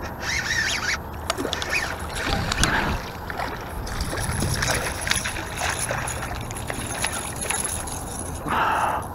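Hooked largemouth bass splashing and thrashing at the surface as it is fought in toward the bank on a bent rod, with scattered short clicks and rustles.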